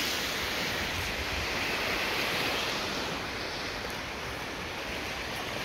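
Steady rushing noise of Lake Michigan surf washing on the shore, mixed with wind on the microphone.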